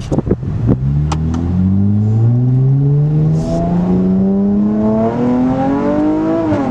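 Dodge Challenger SXT Plus 3.6-litre V6, fitted with a cold air intake, accelerating under load, its note climbing steadily in pitch, then dropping briefly near the end as the automatic upshifts. A few sharp clicks sound in the first second or so.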